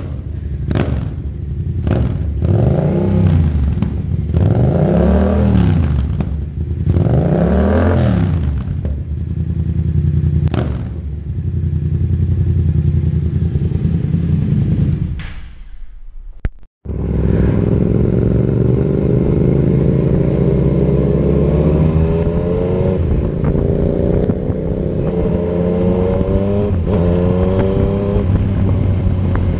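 Yamaha MT-07's parallel-twin engine through a Mivv Delta Race exhaust with the dB killer removed, blipped up from idle and falling back three or four times on the stand. After a sudden cut, the engine pulls up through the gears while riding, in a series of rising sweeps.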